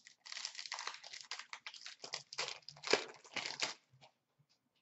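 A stack of hockey trading cards being flipped through and slid against one another by hand: quick, dry rustling and flicking, with a sharper snap about three seconds in, stopping shortly before the end.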